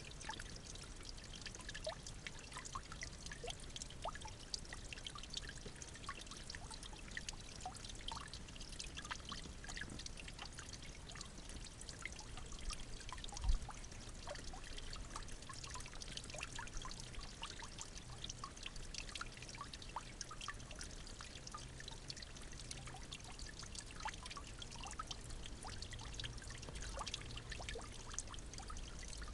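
Steady trickling, pouring water with many small splashy ticks, and one brief low thump about halfway through.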